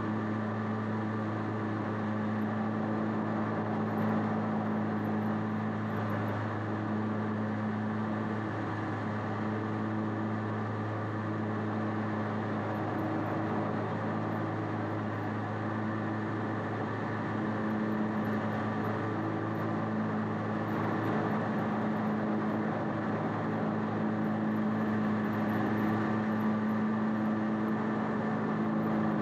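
Bad Boy ZT Elite zero-turn riding mower running steadily while mowing, its engine holding an even drone.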